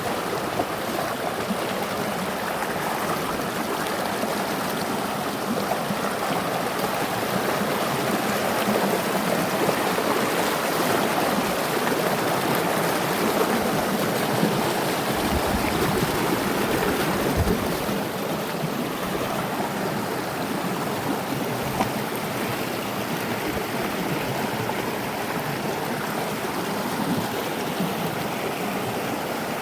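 River water rushing steadily over rocks and small cascades, a continuous even flow that swells slightly in the middle.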